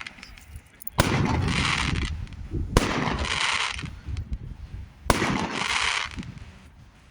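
Fireworks going off: three sharp bangs about two seconds apart, each followed by about a second of hiss.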